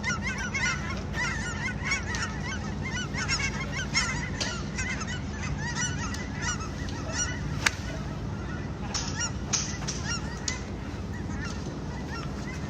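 A large flock of migrating geese honking, many overlapping calls at once, thinning out over the last few seconds. A steady low hum runs underneath, and there is one sharp click about two-thirds of the way in.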